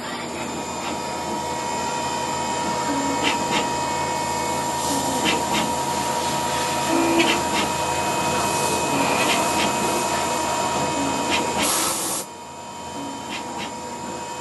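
CNC vertical machining centre running: a steady machine whine and hiss with a held tone and scattered sharp ticks. A short burst of loud noise comes about twelve seconds in, and the sound is quieter after it.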